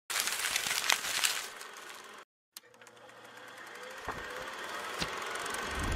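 Sound effects of an animated logo intro: about two seconds of dense crackly rustling noise with sharp ticks, which cuts off suddenly. After a moment of silence a noise swells up steadily, with two sharp knocks near the end.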